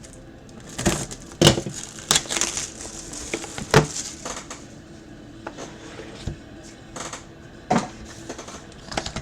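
A sealed box of trading cards being opened by hand: wrapper and cardboard crinkling and tearing, with several sharp snaps and clicks scattered through.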